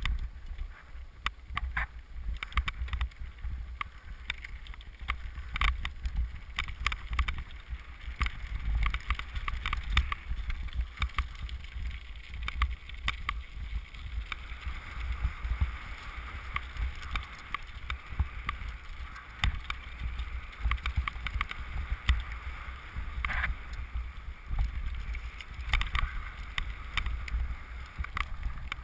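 A mountain bike riding fast down a loose gravel trail: a steady crunch and hiss of tyres on gravel, with frequent sharp clicks and rattles as the bike hits bumps. Wind buffets the camera throughout.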